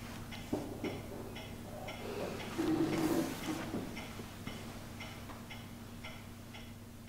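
A clock ticking steadily, about two ticks a second. Between about two and four seconds in, a louder scrape and rustle as a person gets up from a chair.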